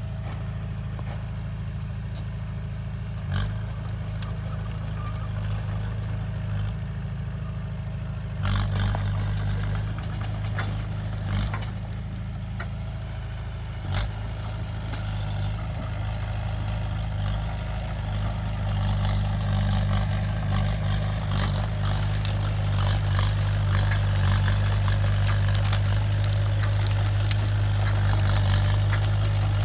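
Diesel engine of heavy earthmoving machinery running steadily, with occasional metallic clanks. The engine gets louder about eight seconds in and again past the middle.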